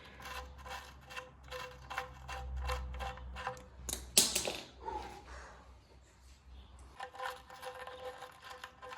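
Light metallic clicks and ticks from tools and metal parts being handled, with one sharper metal clank about four seconds in.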